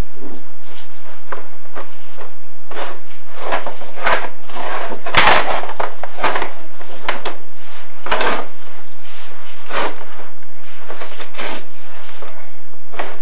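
Chimney inspection camera scraping and bumping against the clay flue tiles as it is worked down the flue: irregular scrapes and knocks, the loudest about five seconds in.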